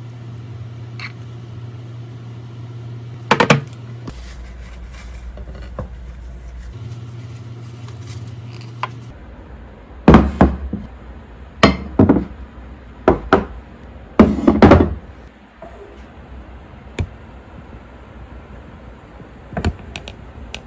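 Microwave oven running with a steady low hum that shifts pitch partway through and stops about nine seconds in. A series of loud knocks and thuds follows.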